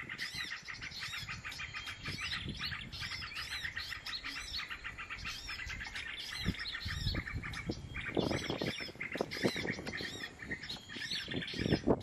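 Small songbirds chirping rapidly and over and over in high, thin calls. Bursts of wing flapping come in the second half as birds flutter on a twig.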